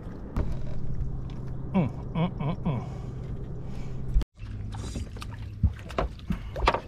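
A boat motor running with a steady low hum, with a few knocks and a brief voice over it. The sound drops out for an instant a little past four seconds, then the hum carries on.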